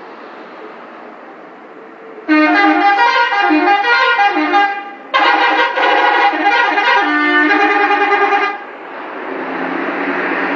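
Telolet bus horn playing its multi-note tune in two loud bursts of about three seconds each, with a short break between. Road and engine noise from the bus runs underneath and rises after the horn stops.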